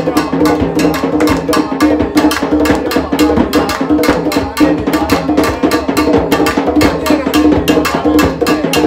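Background music with a fast, steady percussion beat.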